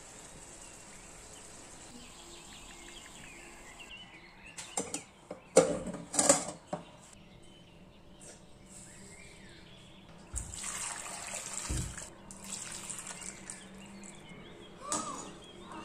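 Water running and splashing, with a few sharp knocks and clatters about five to seven seconds in.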